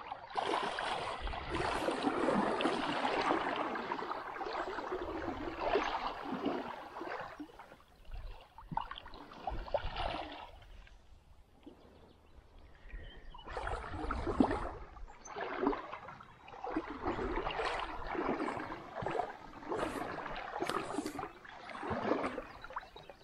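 Water splashing and sloshing. It is a dense, continuous wash at first, fades, then comes back as separate surges about every second and a quarter, like strides or strokes through water.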